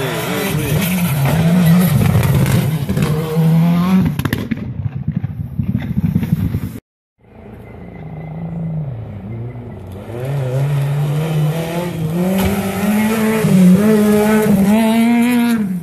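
Rally car engines at full throttle: a car passes and fades away, then after an abrupt cut another car comes on hard, its engine pitch climbing with brief dips again and again as it accelerates through the gears.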